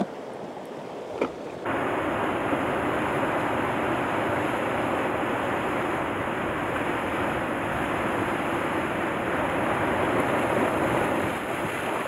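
Sea surf washing over a rocky shore: a steady rush of waves with wind on the microphone, which jumps abruptly louder about two seconds in and swells slightly near the end as a wave breaks against the rocks.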